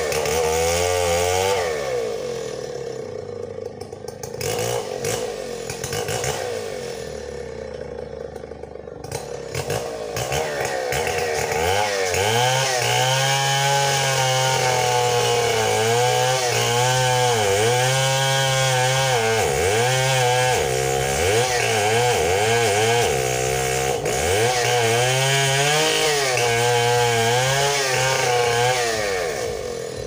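Large two-stroke Stihl chainsaw running: weaker and uneven for the first ten seconds or so, then at full throttle from about twelve seconds in. Its pitch dips and recovers again and again as the chain is pulled down by the cut into a tree trunk.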